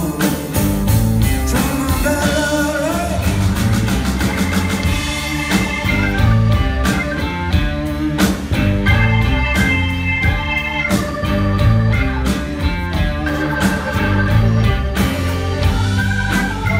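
A live blues-rock band playing: electric guitars, keyboard and drum kit, with singing. Recorded from the audience in a theatre.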